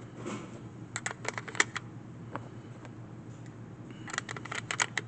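Sharp clicks and pops in two quick clusters, one about a second in and another about four seconds in, over a low steady hum.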